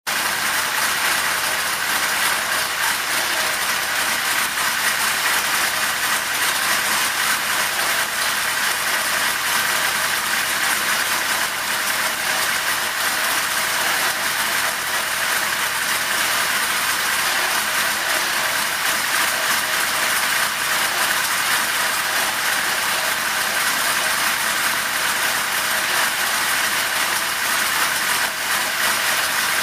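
Big-cubic-inch small-block Ford Windsor V8 running steadily at idle on an engine dyno, an even noise that holds without any rise or fall in speed.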